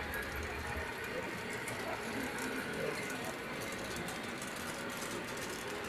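Steady background noise with faint, indistinct voices.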